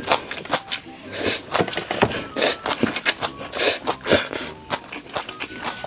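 Slurping up mouthfuls of stir-fried instant noodles and chewing, in quick irregular bursts of slurps and mouth clicks.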